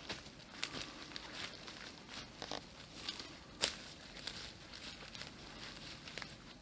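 Footsteps through undergrowth and leaf litter: irregular crunching and crackling, with one sharper snap about three and a half seconds in.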